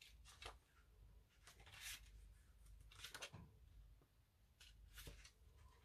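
Near silence broken by a handful of faint, brief paper rustles, as of guidebook pages being leafed through.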